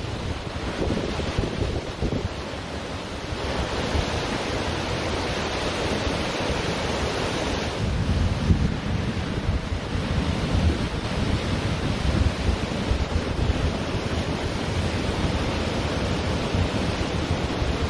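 Ocean surf washing onto a beach, one wave swelling and falling away in the first half, with wind buffeting the microphone as a gusty low rumble that is stronger in the second half.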